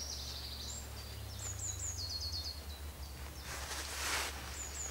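A songbird singing short runs of high, quick, falling notes, repeated several times, over a steady low hum. About three and a half seconds in comes a brief rustle, most likely the nylon hammock fabric being handled as it is gathered into its sleeve.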